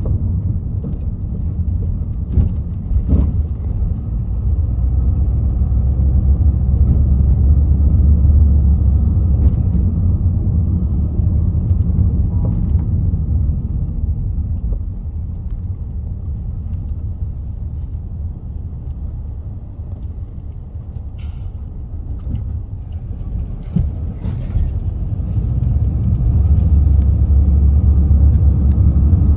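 Steady low rumble of city road traffic, swelling louder twice.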